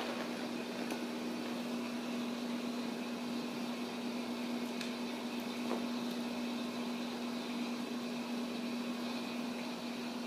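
A steady hum with one constant low tone over a hiss, like a household appliance or fan running, with a few faint ticks.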